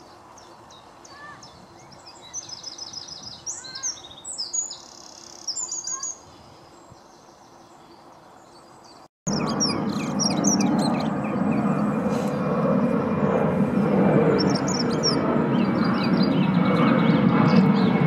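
A wren singing in quick trilling bursts; then, after a cut about nine seconds in, a dunnock singing short, high warbling phrases over a steady low background rumble.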